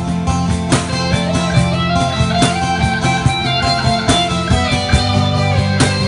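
Live band playing with guitar, bass and drums: sustained guitar notes over a bass line, with regular drum hits.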